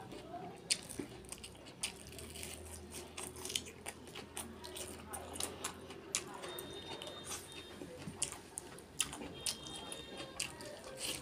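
Close-miked chewing and biting, with wet mouth clicks and irregular crunches, as a person eats a mouthful of duck curry with rice and raw spring onion.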